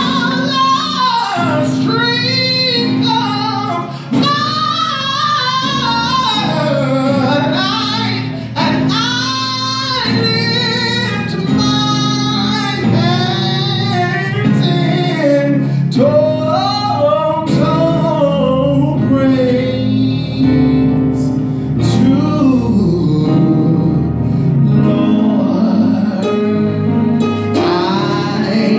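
A man singing a gospel song solo with many sliding, ornamented runs, accompanying himself with sustained chords on an electronic keyboard.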